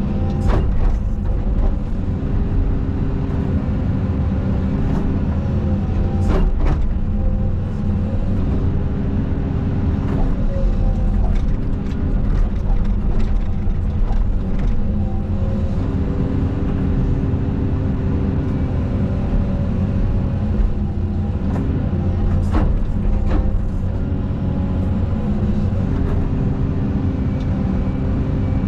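Caterpillar 320 hydraulic excavator working: its diesel engine runs steadily while the hydraulic load makes the tone step up and down. There are a few sharp knocks, near the start, about six seconds in and twice around two-thirds of the way through.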